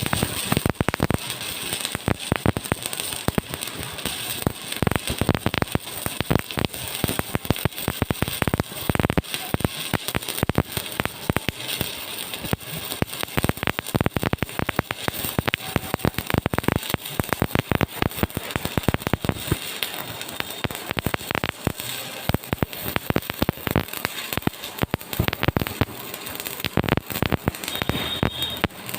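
Stick (electrode) arc welding: the arc crackling and sputtering in a dense, irregular stream. A steady high tone joins near the end.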